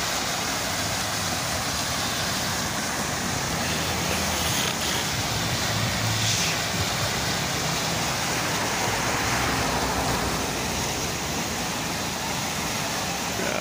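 Water splashing steadily down the tiers of a large stone fountain, with road traffic low underneath.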